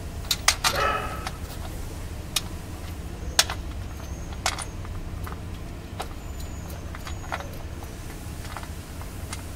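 Scattered sharp metallic clicks and clinks of tools and bolts against the gearbox casing, about ten in all, with a short ringing clatter of metal about a second in, over a steady low hum.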